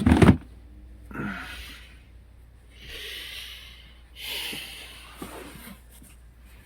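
A person breathing audibly close to the microphone: three slow, noisy breaths, after a short dull thump right at the start.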